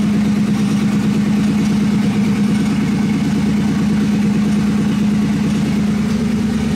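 Twin-turbo LS V8 engine in a Fox-body Mustang idling steadily just after being started, heard from inside the car.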